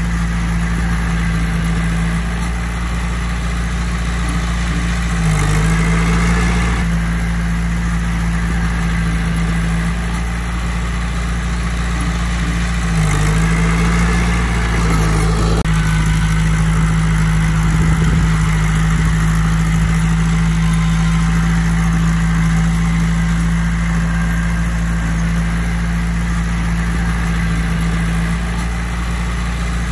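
Bulldozer's diesel engine running steadily, its pitch dipping briefly about four times.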